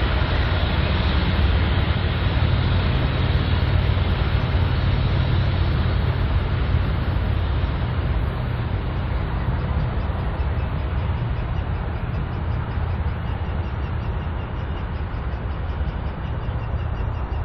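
Diesel locomotives and loaded covered hoppers of a BNSF freight train rolling by, with a steady low engine rumble and wheel noise that slowly fades as the train draws away.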